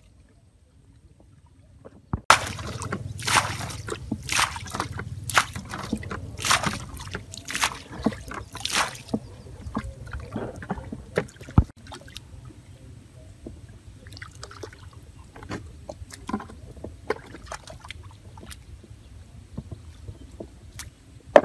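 Bare feet squelching and splashing through wet mud and shallow water, about one step a second, then softer, scattered squelches and splashes in the mud.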